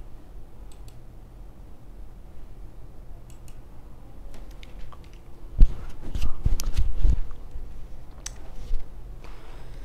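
Steady low room hum with faint scattered clicks, then a cluster of low thumps and rustling about five and a half to seven seconds in.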